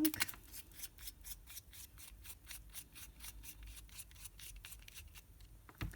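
Fine-nib fountain pen scratching across printer paper while writing, a quick run of short pen strokes, about four or five a second.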